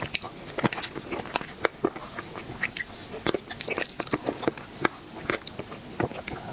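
Close-miked eating sounds: a person biting and chewing dessert, with many short, irregular mouth clicks.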